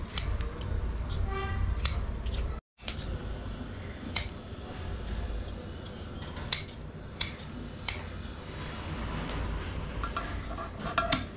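Hand scissors snipping through thick leather, with sharp single snips every second or two. A steady low hum runs underneath.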